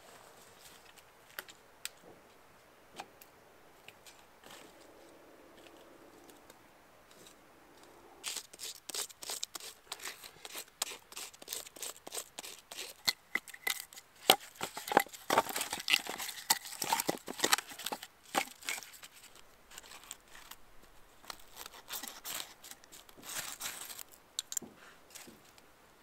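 Dry sticks, twigs and birch bark being snapped, knocked together and laid in a stone fire ring to build a campfire: a few lone clicks, then from about eight seconds in a long dense run of sharp cracks, knocks and crackly rustling, loudest in the middle.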